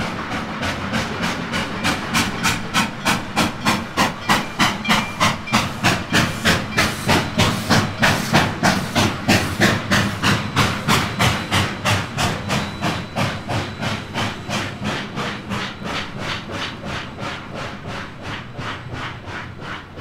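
Coal-fired 4-8-4 steam locomotive No. 2101 (a Reading T-1) running with its exhaust chuffing in a steady beat of about three chuffs a second and a hiss of steam. The chuffs grow louder to a peak about halfway through, then fade away.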